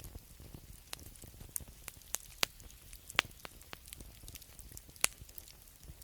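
Wood fire crackling, with irregular sharp pops and snaps, the loudest about three and five seconds in, over a low steady rumble.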